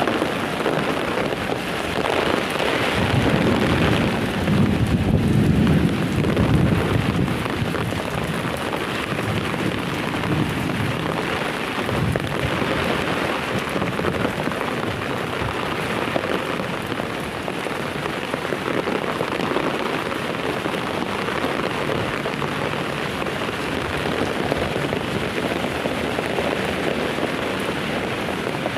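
Heavy rain pouring steadily, with a deep rumble swelling up a couple of seconds in and fading out by about seven seconds.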